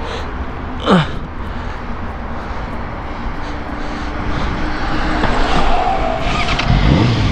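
Yamaha R6 inline-four sport bike being ridden, heard as wind rush over a steady engine drone; its clutch cable has snapped, so it is stuck in first gear. A brief falling tone sounds about a second in, and the engine note rises near the end.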